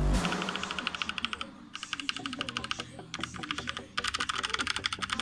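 Typing on a ZUOYA 87-key mechanical keyboard with red linear switches: rapid runs of key clacks, broken by brief pauses about a second and a half in and again around three and four seconds.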